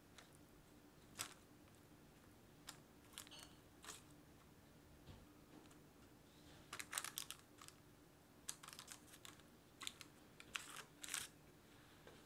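Silicone spatula pushing caramel-coated sliced almonds around a parchment-lined metal loaf pan: faint, scattered light clicks and rustles, coming thicker about seven seconds in and again from about eight and a half to eleven seconds.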